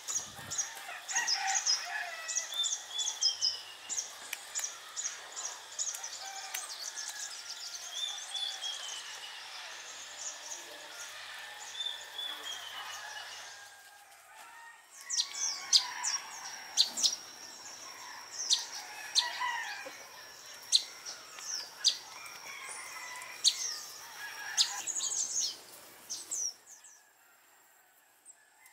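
Several birds chirping and calling, with short falling whistles repeating every few seconds. About halfway through the sound changes abruptly to sharper chirps and clicks over a steady high tone, and near the end it drops away to a faint background.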